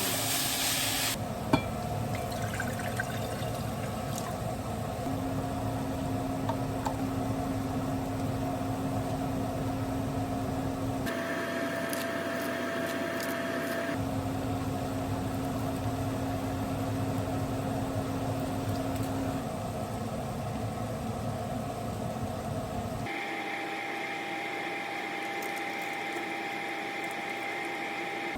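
Food frying in a pan on the stove, a steady hiss over a low hum, changing abruptly a few times where the footage is cut, with a single sharp click near the start.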